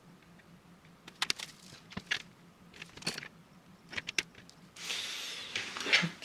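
Light clicks and taps of small objects being handled, in small clusters about a second apart, then about a second of rushing noise near the end.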